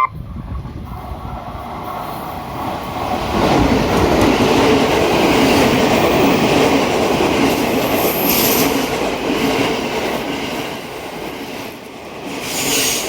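JR West Thunderbird limited express train running past on the rails. The wheel and rail noise builds over the first few seconds, holds loud, then eases off and rises again near the end, with a brief high squeal about eight seconds in.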